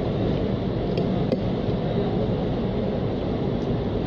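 Steady low background rumble, with two light clicks a little after a second in.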